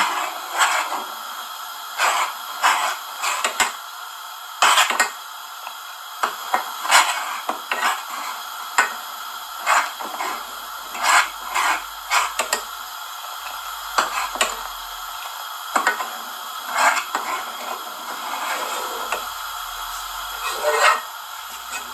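A spoon stirring thickening milk in an aluminium saucepan, scraping and knocking against the pan's bottom and sides in irregular strokes about once a second, to keep the cornflour-thickened milk from catching on the bottom.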